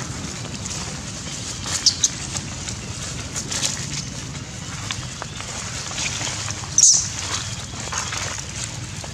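Steady outdoor background noise with a low hum and light rustling, broken by short sharp high clicks or squeaks: two close together about two seconds in and a louder one near seven seconds.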